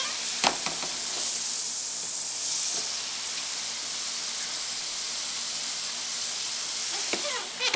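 Potato fries deep-frying in hot oil in an open electric deep fryer: a steady sizzling hiss, a little louder in the first few seconds. A single click about half a second in.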